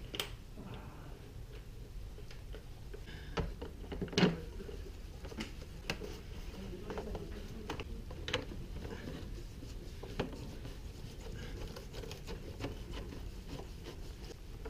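Scattered light clicks and taps of a screwdriver and bolts being handled and fitted on motorcycle bodywork, with one louder knock about four seconds in.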